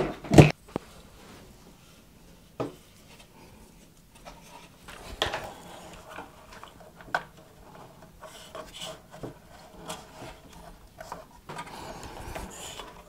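Handling noise from fitting a Noctua NF-F12 case fan into a PC case: two sharp knocks right at the start, then scattered knocks, clicks and rubbing as the fan frame and its screws are worked against the case.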